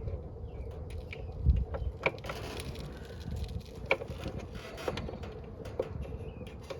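Scattered clicks and light knocks of hand tools and metal parts being handled while an air conditioner is checked for voltage, with a dull thump about a second and a half in.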